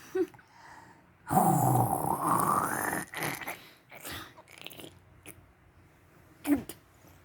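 Snoring: one long, loud snore from about a second to three seconds in, rising in pitch as it goes, followed by a few softer snorts and breaths and a short louder one near the end.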